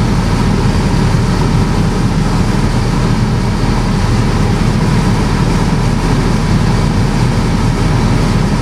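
Light aircraft's piston engine and propeller running steadily, heard loud from inside the cockpit.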